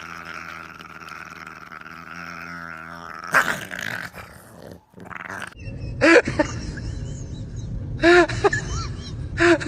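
A dog making noises: a long, steady, drawn-out growl for about three seconds, then after a short scuffle a few bursts of short, high whimpering yelps.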